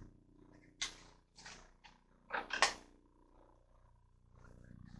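Cardstock being handled: a few short paper rustles and scrapes, the loudest pair a little past halfway, over a low steady hum.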